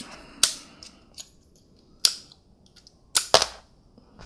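Sharp metallic clicks from a steel punch and small parts working against an airsoft Glock's frame as the slide lock lever is pushed out. There are four clicks: one about half a second in, one about two seconds in, and a close pair a little after three seconds.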